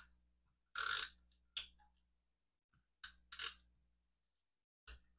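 Adhesive tape runner drawn across cardstock in short strokes, about five quick scratchy zips laying down glue tape.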